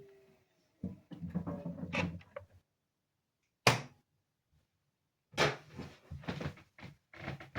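Sneakers tumbling in a Samsung washing machine drum, knocking and clattering against it in irregular bursts, with one sharp bang about three and a half seconds in.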